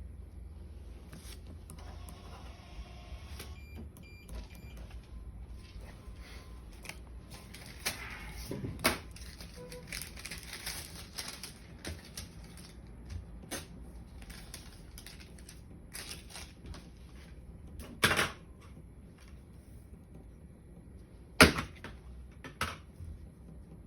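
Scattered small clicks, taps and rustles of objects being handled, with three sharper knocks spread through, over a low steady hum.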